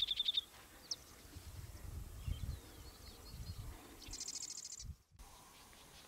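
Grass wren singing: a quick dry trill at the start, a single high note about a second in, then a higher, buzzy trill near the end.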